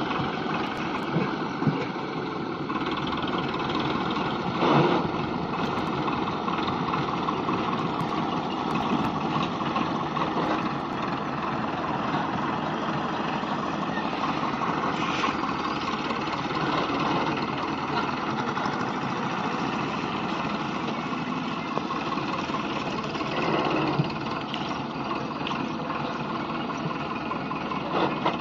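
Powertrac Euro 55 tractor's diesel engine running steadily, with a few brief thumps, the loudest about five seconds in.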